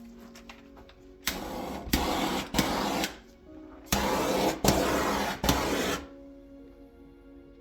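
A motorised tool run in six short bursts, each starting and stopping abruptly, in two groups of three, over background music.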